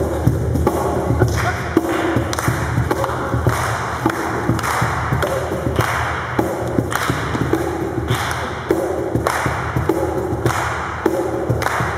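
Loud music with a strong, thumping beat and a repeated short melodic figure over a steady bass.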